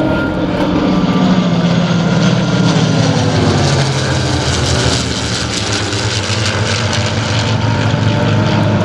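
Packard Merlin V12 engines of P-51 Mustang warbirds running at display power as the aircraft fly by, a steady propeller-driven drone whose note falls a little over the first few seconds.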